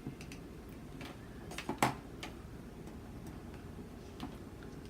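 A few small sharp clicks and taps from makeup products being handled, loudest just under two seconds in, over a low room hum.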